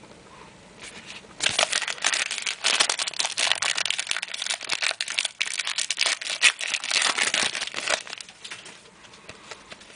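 Crinkling of a trading-card pack wrapper as it is opened and the cards are handled: a dense run of small crackles starting about a second and a half in and lasting about six seconds.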